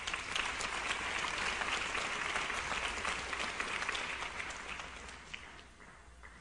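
Audience applauding, the clapping steady for about four seconds and then dying away.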